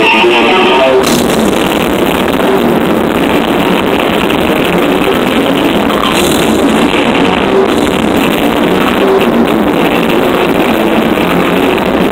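Death metal band playing a song live: distorted electric guitar and drums in a dense, loud, unbroken wall of sound.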